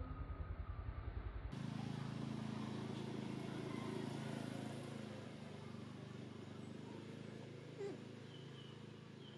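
A steady low motor hum, like an engine running, with a few faint short chirps near the end. Before it, a low rhythmic rumble cuts off about a second and a half in.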